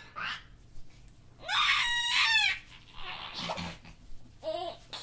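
A high-pitched, shrieking laugh sound effect: one loud squealing laugh about a second and a half in, lasting about a second, with fainter short yelps before and after it.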